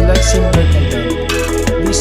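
Background music: a hip-hop style track with a heavy bass line and a steady drum beat.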